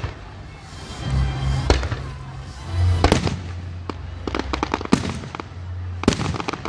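Fireworks display: aerial shells bursting with sharp bangs every second or two. Clusters of rapid crackling reports come about four seconds in and again near the end.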